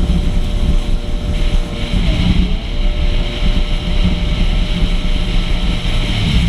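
Two-stroke Yamaha WaveRunner personal watercraft running steadily at speed, its engine note mixed with wind buffeting the microphone and water rushing in the wake.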